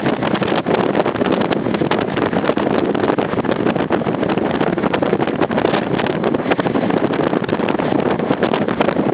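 Strong typhoon wind blowing and buffeting the microphone: a loud, steady rushing broken by constant quick gusts.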